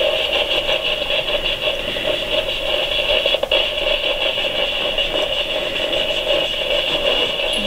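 Spirit box sweeping through radio channels, giving a steady, loud static hiss with a fine, rapid, even pulsing.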